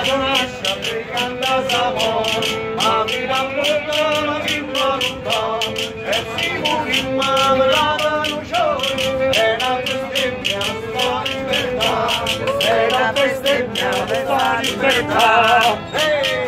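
A man singing a song to a strummed acoustic guitar, with a steady, even strumming rhythm under the melody.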